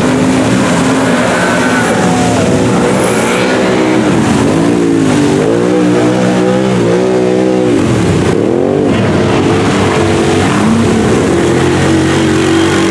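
Small off-road engines of side-by-side UTVs and a quad bike revving hard as they plough through deep mud, the engine note swooping up and down again and again.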